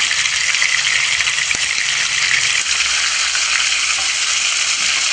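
Sturgeon fillet frying in hot oil in a Teflon pan: a steady sizzle.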